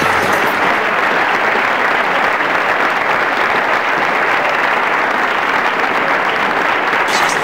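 Large crowd cheering and applauding in one steady, unbroken wash of noise.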